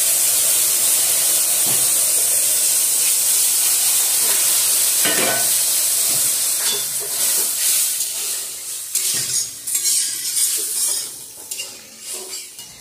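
Cold milk sizzling and hissing as it hits ghee-fried vermicelli in a hot aluminium wok, with a metal ladle stirring and scraping the pan. The hiss holds steady for several seconds, then dies down over the second half as the milk settles.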